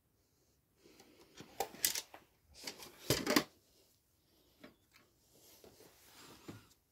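Handling noise from a cardboard model box: rustling and scraping with a few sharp knocks, loudest about one and a half and three seconds in, then lighter clicks and rustles.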